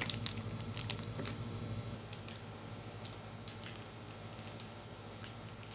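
Irregular light plastic clicks and taps as a small toy surprise capsule is handled and pried at in an attempt to open it.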